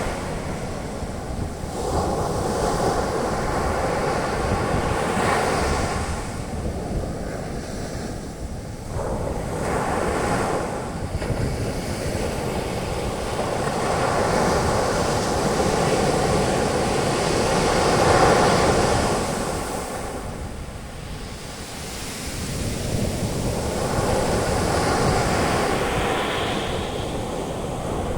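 Ocean surf breaking and washing up a beach, the foam hissing as each wave rolls in. The sound swells and ebbs several times, with the loudest surge about two-thirds of the way through.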